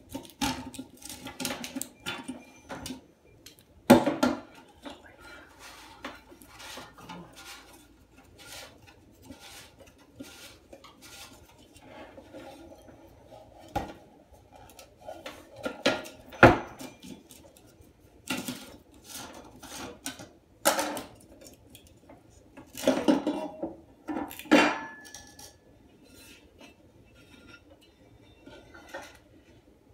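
Tongue-and-groove pliers and loose parts clinking and knocking against a porcelain toilet tank and the tabletop while the old flush valve's nut is worked off: irregular clatter with sharp knocks, the loudest about four seconds in and about sixteen seconds in, and a flurry of knocks a little past twenty seconds in.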